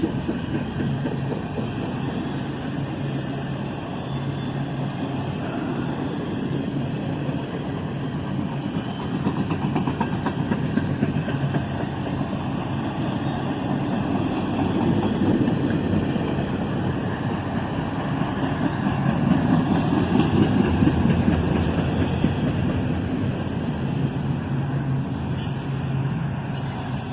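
CSX intermodal freight train's empty and single-stack well cars rolling past, a steady rumble and clatter of steel wheels on rail that swells louder twice in the second half.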